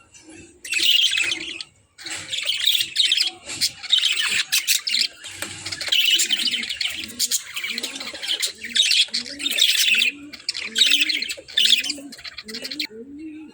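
Small pet parrots, lovebirds and budgerigars, chirping and chattering in long, busy runs with short breaks. Under the chatter, a low repeated note comes about once a second in the second half.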